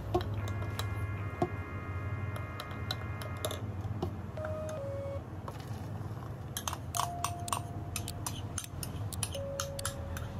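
Soft background music with held chords and a few sparse notes, over a low steady hum, with many small clicks and clinks throughout.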